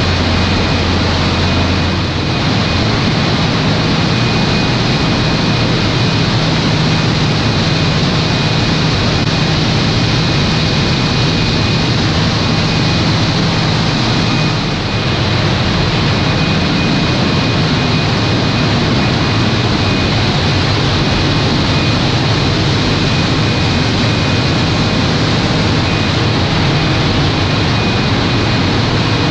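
900 kVA Caterpillar diesel generator set running on a test run: a loud, steady, unbroken engine noise with a low hum, which shifts slightly about two seconds in, and a thin high whine over it.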